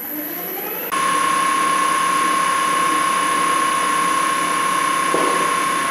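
Wood lathe running with a steady high whine as a turning gouge cuts the spinning wooden lamp column, the cutting hiss coming in abruptly about a second in and holding steady; this is the rounding and smoothing of the column's beads by eye.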